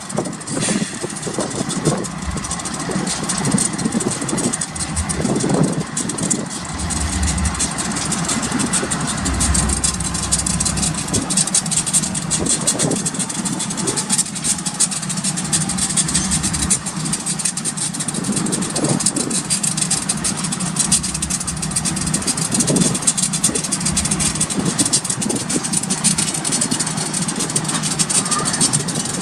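Diesel engines of a light-engine consist of GE and EMD diesel-electric freight locomotives running steadily as the units move past, a constant low drone with a hiss over it.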